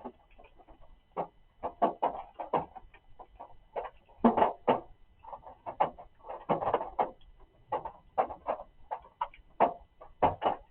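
Raindrops striking surfaces in an irregular patter of drum-like knocks, some single and some in quick clusters.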